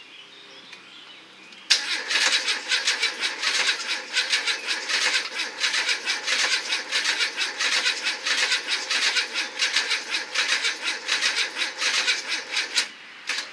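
Renault Clio 1.2 L Energy engine cranked on its starter motor for about eleven seconds without catching: a fast, even churning that starts suddenly about two seconds in and stops abruptly near the end. The engine has just been run to failure without oil or coolant and will not restart.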